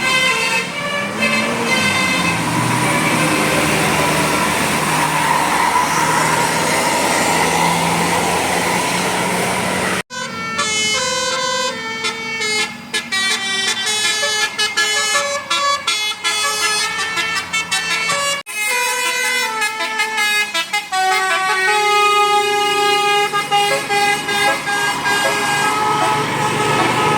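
Indonesian buses sounding Basuri telolet horns: multi-tone horns playing short melodies note by note, over engine noise. Abrupt cuts about ten and eighteen seconds in join separate horn recordings.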